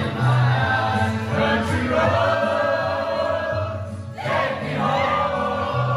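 Background music with choral singing: sustained vocal chords over a bass line.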